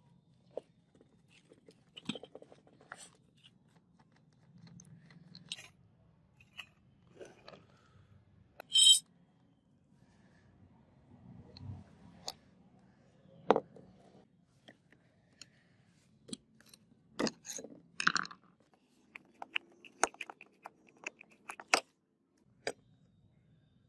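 Rusty angle grinder taken apart by hand: scattered metal clicks, knocks and scrapes as the disc, flange nuts and guard are worked loose and set down on concrete. The loudest is a short rattle about nine seconds in, with a cluster of knocks a few seconds before the end.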